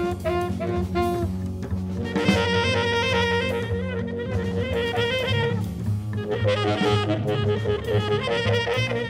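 Jazz trio playing: tenor saxophone with double bass and drums. The saxophone plays a few short separate notes, then from about two seconds in launches into runs of fast notes over the walking bass and drums.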